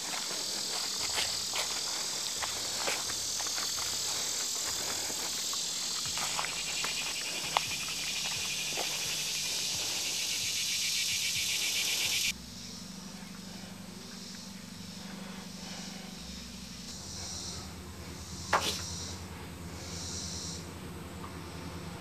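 Insects in summer woodland making a dense high hiss, with footsteps crunching on a dirt path. About twelve seconds in, the sound cuts off abruptly to a quieter low steady hum, with a few faint high chirps and one sharp click.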